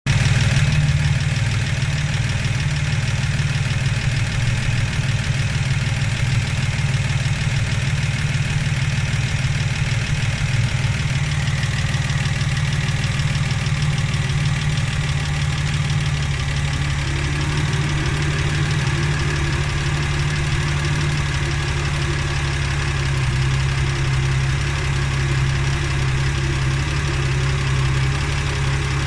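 Holden Torana's six-cylinder engine idling steadily as it warms up, with a faint higher hum joining about halfway through.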